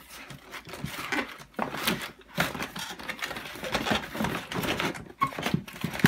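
Cardboard packaging and plastic vacuum attachments being handled. There is irregular rustling and scraping, with light knocks, as the tools are pushed into a cardboard insert in the box.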